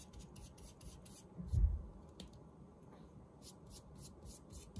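Flat brush spreading glue over paper in a run of short brushing strokes, more of them near the end, with one dull low thump about a second and a half in.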